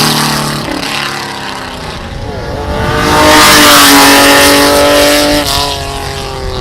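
Racing car engines on a track. One fades out in the first second, then another comes through under hard acceleration: its note climbs about two and a half seconds in, holds high and loud, then drops away a little after five seconds as it passes.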